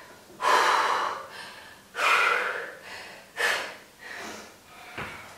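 A woman breathing hard from exertion: loud, forceful exhalations about every second and a half, the first two the strongest, then fainter breaths.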